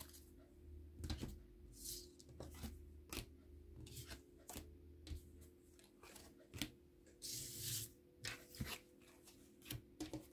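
Tarot cards being shuffled and handled: a string of short clicks and flicks, with a longer rustle of cards about seven seconds in.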